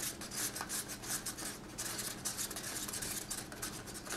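Wooden craft stick scraping and stirring acrylic paint in a small cup: a quick, irregular run of scratchy strokes.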